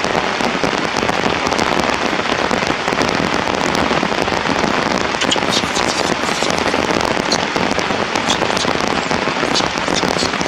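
Steady rain falling and pattering on surfaces, with sharp drop ticks scattered through it that grow more frequent from about halfway through.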